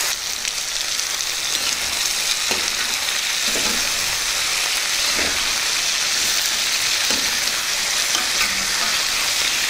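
Raw chicken pieces sizzling in hot oil in a steel kadai, stirred with a metal ladle that knocks and scrapes against the pan a few times.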